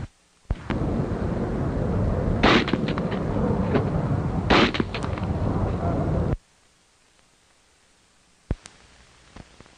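Two rifle shots about two seconds apart over a loud, steady rushing noise. The noise cuts off suddenly about six seconds in. Near the end there is a single faint click.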